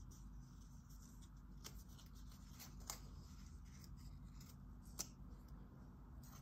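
Faint crackles and clicks of dry leaves being bent and rubbed between fingertips close to the microphone, a few sharper crackles scattered through, the loudest about five seconds in. It is the crisp sound of a dry, rigid leaf.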